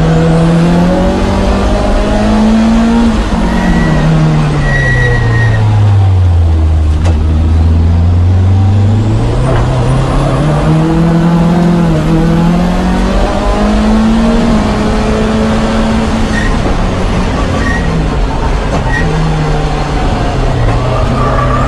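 Lancia Delta HF Integrale's turbocharged four-cylinder engine heard from inside the cabin under racing load, its pitch climbing, then falling away to a low point around the middle as the car brakes for a slow corner, and climbing again as it pulls away.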